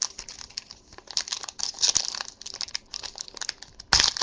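Plastic-foil trading card pack wrapper crinkling as it is handled, with one louder, sharp crackle near the end.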